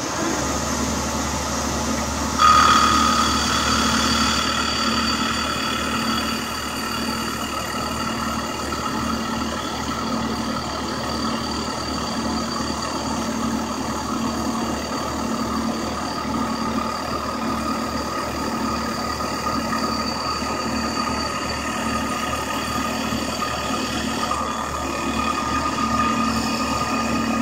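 Grizzly G0678 milling machine running a CNC facing pass on aluminum: a steady hum from the spindle motor, belt and spindle, with the servos inaudible. About two and a half seconds in, the sound steps up suddenly to a louder, higher steady whine.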